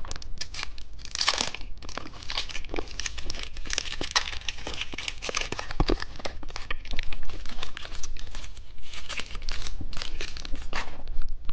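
Plastic candy wrapper crinkling and tearing as a chocolate packet is opened and handled, a dense run of small irregular crackles and rustles.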